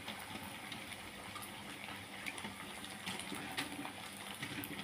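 Hot cooking oil sizzling steadily around glutinous-rice crackers (rengginang) deep-frying in a wok, with a few faint crackles.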